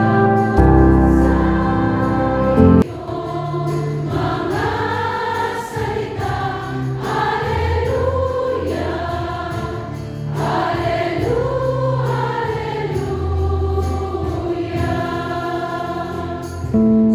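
Sacred background music: sustained chords for the first few seconds, then a choir singing slow phrases that rise and fall in pitch.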